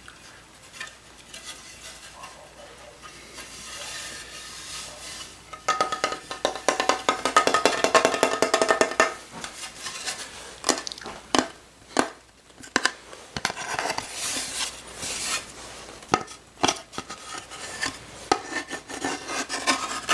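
Tapping on a large handmade carved wooden mask. A quiet stretch comes first, then a dense run of rapid taps with a slight ringing tone for about three seconds, then scattered single knocks.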